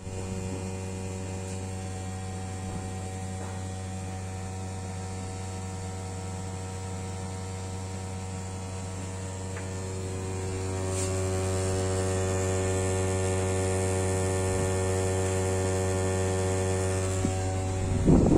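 Air-conditioner outdoor unit running with a steady low hum and a stack of overtones. It grows louder about ten seconds in, with more overtones joining.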